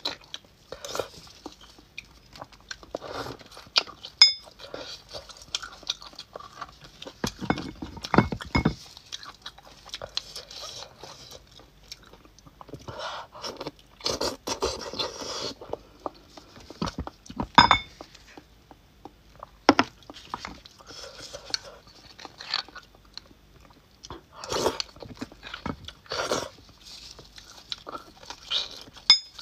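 Close-miked eating of braised beef bone marrow: soft chewing and slurping of the marrow, with a metal spoon scraping and clicking against the bones. The spoon gives two sharp ringing clicks, about four and eighteen seconds in.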